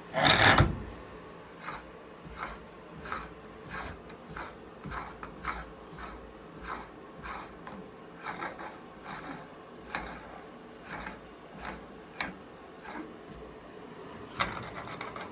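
Moxon vise screw being turned by hand by its handle, the threads rubbing in short, evenly repeated strokes about every half second as the vise is tightened. A louder scrape comes right at the start and another near the end.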